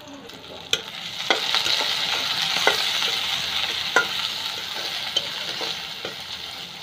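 Sliced onions and green chillies sizzling in hot oil in a blackened wok, stirred with a spatula that knocks against the pan a few times. The sizzle swells about a second in and slowly eases off.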